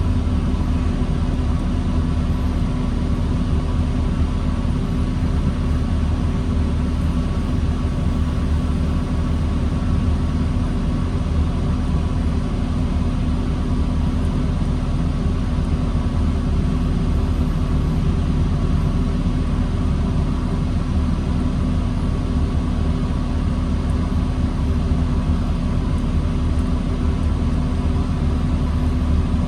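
Diesel engine of a 2009 New Flyer D40LFR transit bus running steadily, a constant low rumble with a steady hum, heard from inside the bus.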